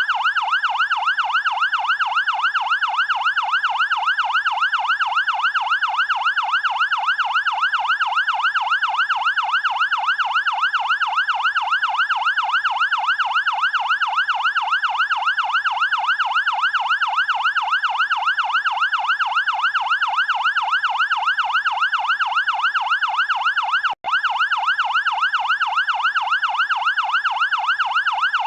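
Electronic fire-engine siren in a fast yelp, its pitch sweeping up and down about twice a second, steady and loud. It cuts out for an instant about 24 seconds in, then carries on.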